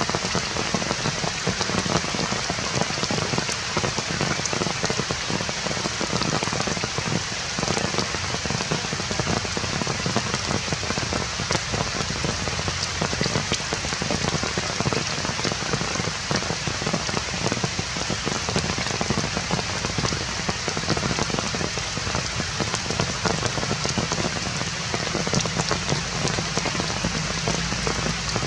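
Steady rain falling, a dense patter of many small drop impacts with no let-up.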